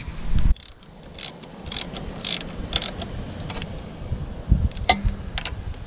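Socket ratchet clicking in quick, uneven runs as the bolts of an ATV recoil starter housing are run in and snugged down, after a low thump at the start.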